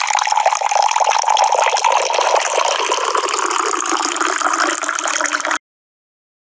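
A loud, steady, crackling rushing hiss, like gushing water or spray, that cuts off suddenly about five and a half seconds in.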